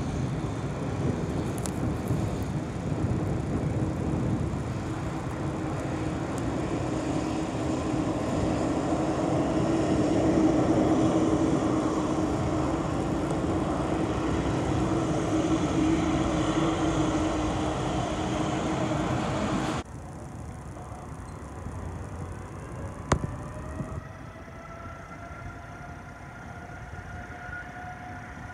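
Jet airliner engines running as the aircraft taxis close by: a loud, steady rush with a low hum. About twenty seconds in it cuts off abruptly to a quieter rush, and over the last few seconds a whine rises slowly in pitch.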